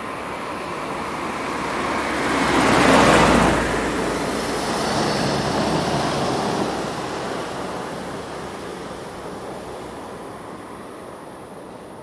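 Road traffic: a vehicle passes close by, its tyre and engine noise swelling to a loud peak about three seconds in, followed by more passing traffic noise that gradually fades away.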